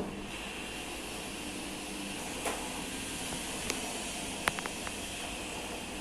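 Split air conditioner's indoor unit blower fan running alone with a steady hiss of moving air, with a few light clicks partway through. The outdoor unit and compressor have not yet started: the board has not yet signalled the outdoor unit.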